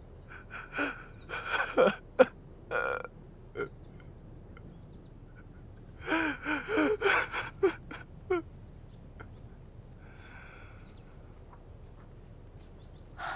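A person's non-speech vocal sounds: short strained gasps and grunts in two clusters, one about half a second in and one about six seconds in, with a fainter breath near the ten-second mark.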